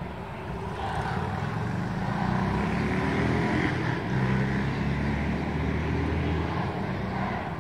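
A motor vehicle's engine running close by, its low hum swelling about a second in and easing near the end, over general street noise.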